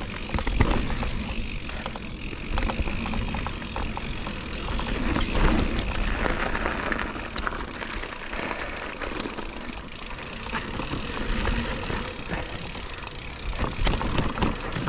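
Mountain bike ridden along a dirt trail: steady rolling tyre noise with frequent clicks and rattles as the bike goes over bumps.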